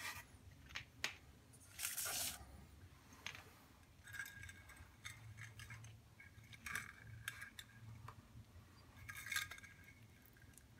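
Faint handling sounds of a thread drawn taut over a glazed ceramic tile: scattered light clicks and short scratchy rubs, with one louder scrape about two seconds in.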